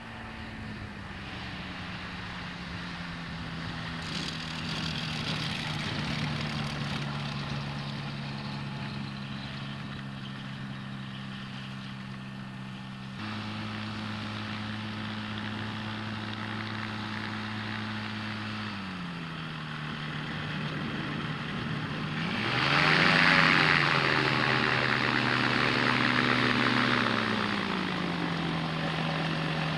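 Small propeller plane's engine running steadily. Later the engine speed drops, rises sharply into a loud rev about two-thirds of the way through, then falls back to a steady idle near the end.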